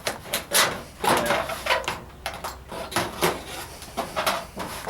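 Tin snips cutting thin aluminum sheet: a series of irregular metallic snips and crunches, a dozen or so.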